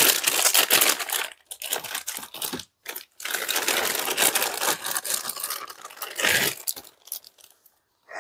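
Clear plastic packaging bag crinkling and rustling as it is handled and pulled off a laptop accessory, with a short break about three seconds in and dying away near the end.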